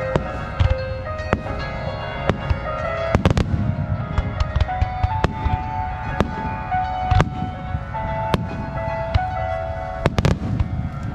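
Aerial fireworks shells bursting with repeated sharp bangs and crackling, some in quick clusters, over music with a melody of held notes.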